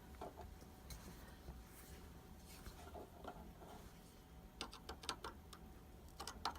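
Faint handling noise: scattered light clicks and taps, a few bunched together in the last two seconds, over a low hum.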